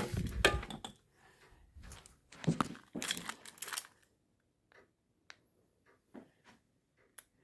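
Two spells of rustling and crackling, one at the start and one about two and a half seconds in, then a few separate soft clicks.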